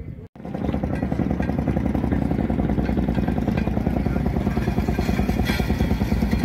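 Narrow-gauge rail speeder's small engine running at a steady, rapid beat as the speeder rolls past close by on the track; the sound starts abruptly just after a brief drop-out near the start.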